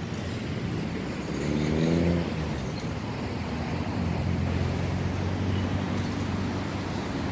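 Motor vehicle engine running nearby. It rises in pitch and is loudest about two seconds in, then settles into a steady low hum.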